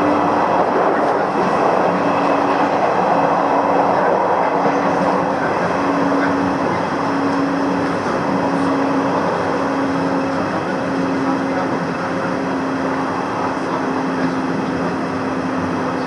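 Electric train running at speed, heard from inside the carriage: a steady rumble and hiss of wheels on rail with a low hum that at first breaks up about every two-thirds of a second, then holds steadier.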